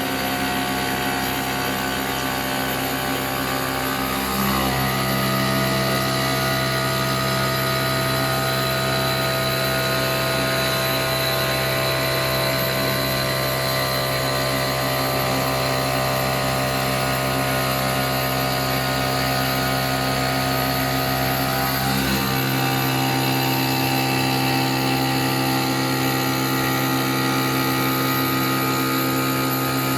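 Stone-cutting CNC router running steadily with a machine hum and whine. The tones shift about four seconds in and again about two-thirds of the way through, as the machine changes what it is doing.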